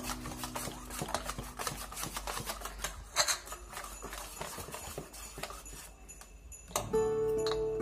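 A wire whisk beating boondi batter in a bowl: quick, uneven clicks and knocks as the wires strike the bowl. Background music comes in near the end.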